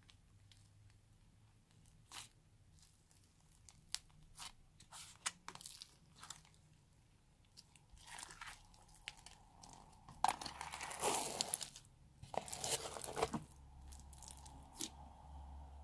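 Slime being pressed and squished by hand, with scattered sticky pops and clicks as air pockets burst. Then two stretches of dense crunching, about ten and twelve seconds in, as foam-bead slime is squeezed and mixed in.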